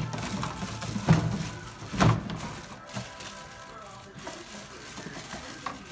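A two-compartment stainless steel step-pedal trash can thudding three times in the first two seconds as its foot pedal is worked, its lid lifts and a bag of rubbish goes in, then quieter.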